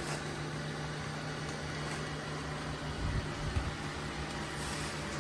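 A steady low mechanical hum over an even hiss, with a few soft low knocks about three seconds in.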